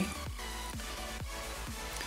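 Quiet background music with a steady low bass line.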